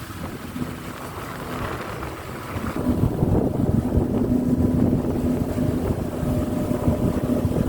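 Boat engine running steadily with wind buffeting the microphone; the engine hum and rumble get louder about three seconds in.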